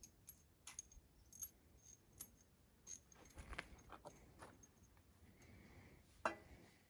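Faint clicks and clinks of small metal parts being handled, several with a short high ring. A sharper knock comes a little before the end, as a metal part is set down on the tractor's metal gearbox casing.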